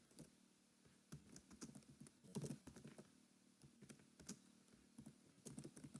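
Faint keystrokes on a computer keyboard, typing in uneven clusters of short clicks.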